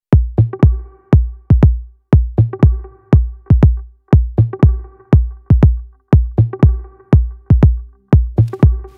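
Electronic dance music: a deep kick drum whose pitch drops on every hit, in a repeating pattern of about three hits a second, over a faint held synth chord.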